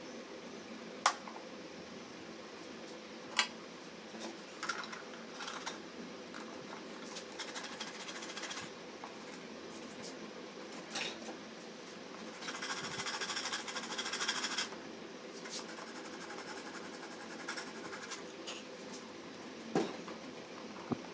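A few sharp clicks and taps over a steady low hum, with about two seconds of rapid rattling buzz about halfway through.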